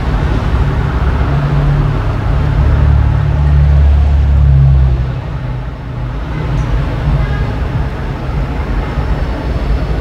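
Low engine rumble of a motor vehicle, swelling about one and a half seconds in and easing off after about five seconds into a steadier background drone.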